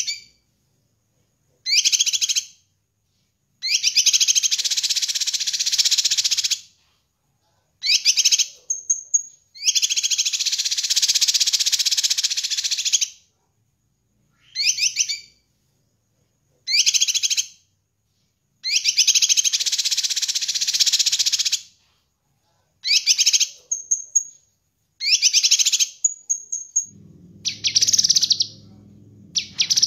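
Cucak kinoi (leafbird) singing in bursts of fast, chattering song, some lasting two or three seconds, with short pauses and a few thin, clear high whistles between them. A low hum comes in near the end.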